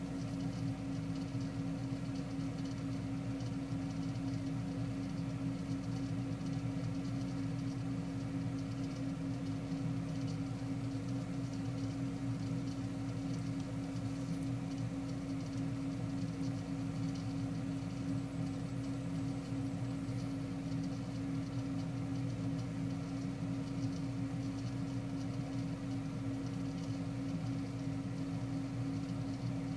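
Steady low mechanical hum with a few constant tones, unchanging throughout.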